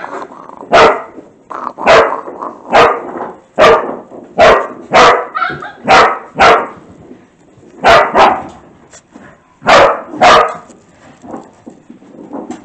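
A dog barking in play: about a dozen short, sharp barks, some in quick pairs, stopping shortly before the end.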